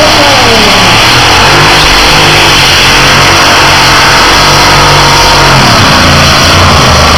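Supercharged V8 engines of a multi-engine tractor-pulling machine running loud at full throttle during a pull, the engine note sagging briefly about six seconds in.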